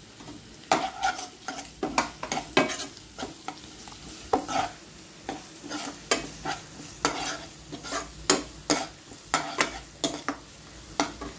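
A steel spoon stirring and scraping onions and green chilli-garlic paste around a nonstick kadhai, about two strokes a second, with the oil frying and sizzling underneath.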